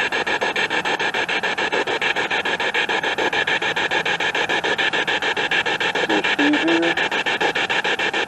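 SB7 spirit box sweeping through radio stations: hissing static chopped into rapid, even pulses many times a second, with a brief snatch of pitched broadcast sound about six seconds in.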